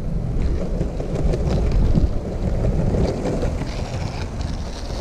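Skateboard wheels rumbling over rough asphalt, with wind buffeting the microphone.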